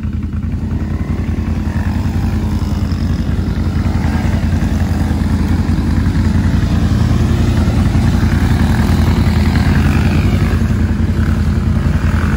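ATV engine running steadily as the quad rides along, a low drone that grows slightly louder over the first few seconds and then holds.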